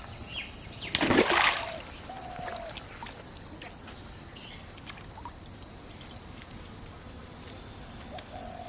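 A splash in pond water: one sudden burst about a second in, lasting about half a second.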